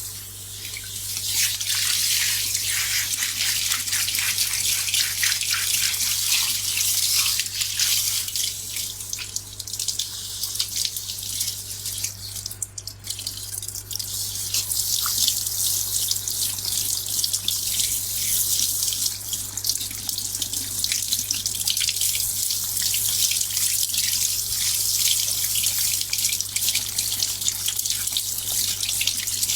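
Running water splashing into a salon hair-washing basin while hair is rinsed, a steady hiss that eases briefly around the middle.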